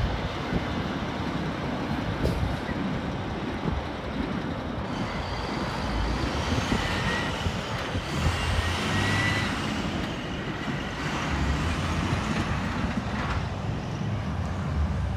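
Road traffic driving past: steady engine and tyre noise from passing vehicles, with a brief high whine near the middle.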